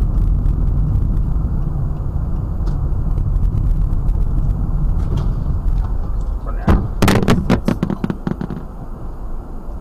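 Steady low road and engine rumble heard inside a moving car, then, about six and a half seconds in, a sharp bang followed by a rapid clatter of knocks lasting under two seconds as a torn-off car wing mirror strikes the hood and windshield.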